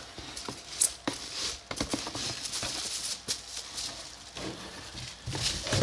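Packaging crinkling and rustling as it is handled, with scattered sharp clicks and taps.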